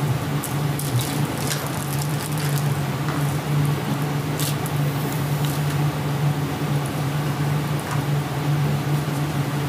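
Room tone: a steady low hum with a hiss over it and a few faint clicks, the clearest about four and a half seconds in, from a recording of an empty, quiet interview room played back over loudspeakers.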